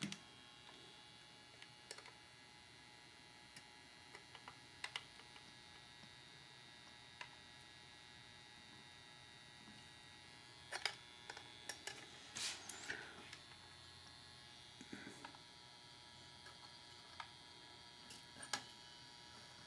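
Near silence: a faint steady hum, with scattered soft clicks and taps from hands handling a soldering iron, solder and small connectors. Most of the clicks come about eleven to thirteen seconds in.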